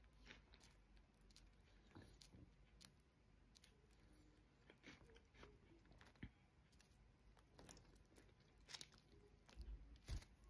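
Budgerigar nibbling a crisp iceberg lettuce leaf with its beak: faint, irregular crunching clicks, a few a second, with a louder cluster near the end.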